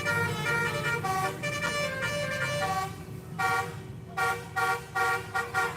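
Indonesian bus 'telolet' multi-tone horn playing a tune of changing notes over the low rumble of the bus's engine. About halfway through it switches to a run of about six short, separate toots.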